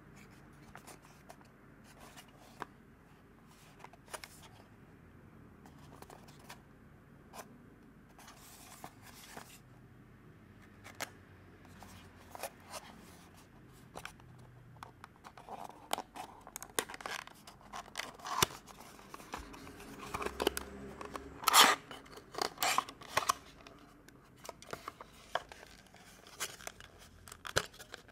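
Small cardboard box and clear plastic clamshell handled by hand while unboxing a diecast model car: scattered clicks and scrapes as the box's end flap is opened. The sounds grow busier and louder past the middle as the plastic tray is slid out and handled.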